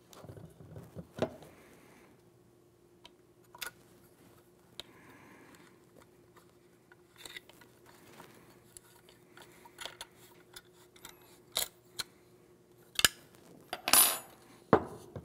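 Light metallic clicks and ticks of an Allen key turning the grip screw into a shotgun's lower receiver, followed near the end by a few sharp metal clinks and a brief ringing clatter as the key is laid down on the bench.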